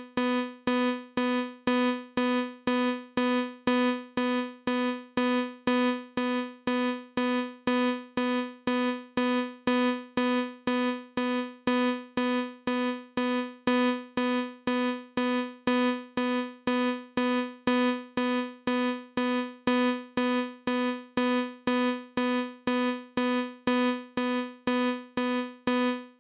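A synthesized keyboard note, about middle C, repeated evenly about twice a second as an alarm-like beep, each note fading quickly. It is a made-up imitation of a fire alarm or alarm clock, and it stops abruptly at the end.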